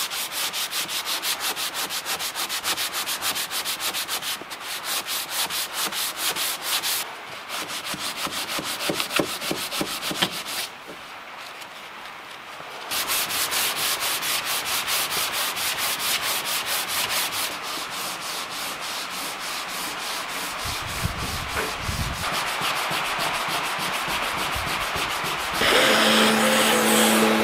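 Hand sanding of a fiberglass boat console with abrasive in a gloved hand: quick, rhythmic back-and-forth rubbing strokes, with a short pause about eleven seconds in. Near the end a louder steady sound with a low hum takes over.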